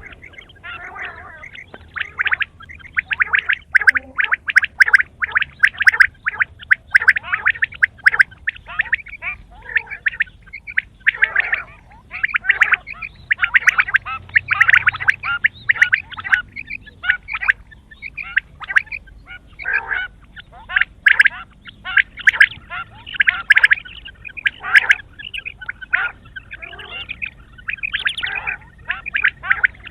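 Quail calling continuously, a dense run of quick, rapidly pulsed notes repeated over and over with short breaks between runs.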